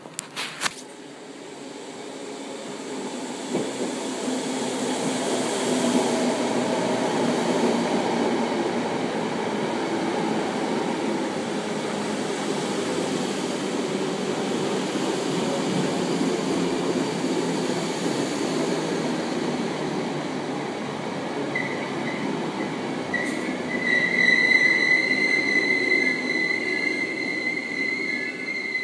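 Electric multiple-unit train pulling into the platform: its rumble builds over the first few seconds and then runs steady. In the last quarter a high, steady squeal sets in as it slows to a stop.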